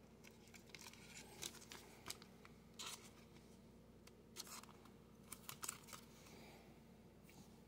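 Faint rustling and crinkling of a thin clear plastic card sleeve as a trading card is slid into it, in a few short scrapes.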